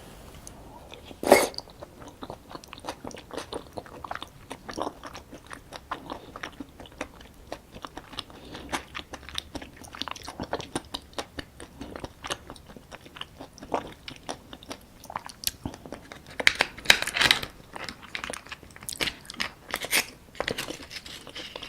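Close-miked chewing and biting of soy-sauce-marinated raw crab: a sharp crunch of shell about a second in, then steady wet chewing with many small crackles, and a louder run of crunching about three-quarters of the way through.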